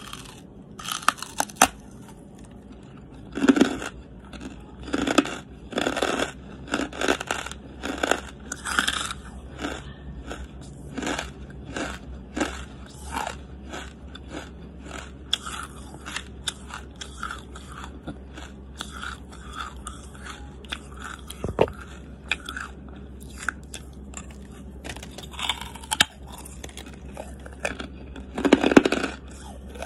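Charcoal being bitten and chewed close to the microphone: repeated crisp crunches, roughly one a second, with a cluster of louder bites near the end.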